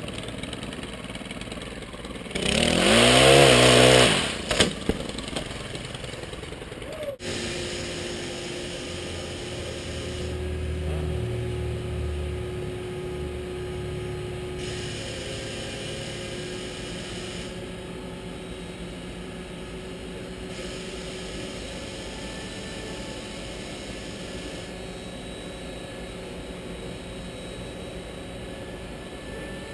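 A crane's engine revs up hard about two seconds in, its pitch rising, then runs on steadily with a low rumble while the crane lifts a heavy section of tree.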